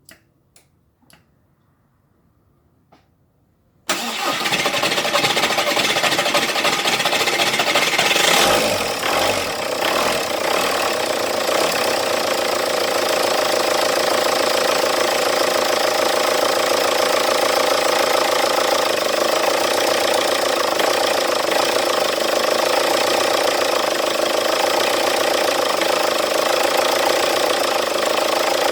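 A few faint clicks, then about four seconds in a cold TDI turbodiesel engine starts up, runs unevenly for a few seconds and then settles into steady running. This is a cold start of an engine that, per its owner, is hard to start only when cold.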